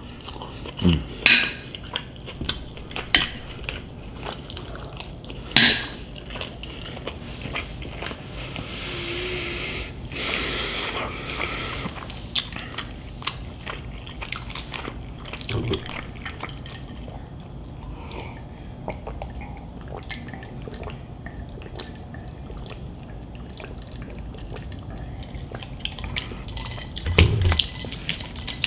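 Close-up eating sounds: wet chewing and mouth sounds, with scattered clicks of cutlery on a plate.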